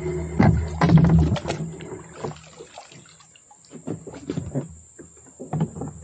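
A small outboard motor on an aluminium boat gives a loud low rumble that stops about a second and a half in. Water then splashes and drips in short scattered bursts as a wet fishing line is pulled up by hand over the side.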